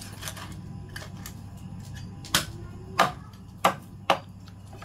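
Meat cleaver chopping through grilled chicken on a wooden cutting board: a few light knocks, then four sharp chops in the second half.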